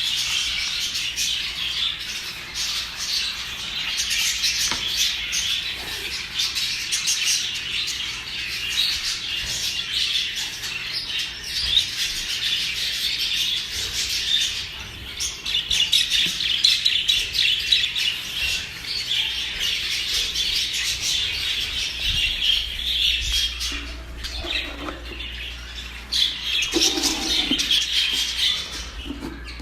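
Many small cage birds chirping and twittering together, a dense continuous chatter of short high calls.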